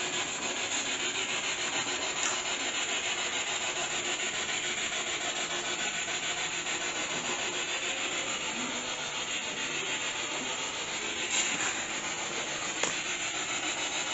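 Steady hissing static with a fast, even pulsing, broken by a couple of faint ticks.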